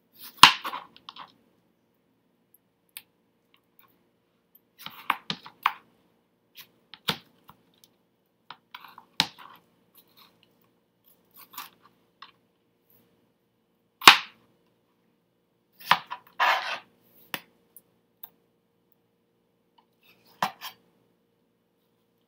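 Chef's knife cutting through a cantaloupe on a cutting board: sharp crunching cuts through the rind and flesh and knocks of the blade on the board, coming singly or in short clusters a few seconds apart.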